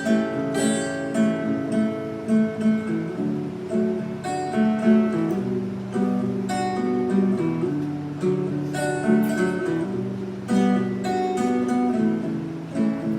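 Acoustic guitar strummed and picked in an instrumental break, steady chords with no voice.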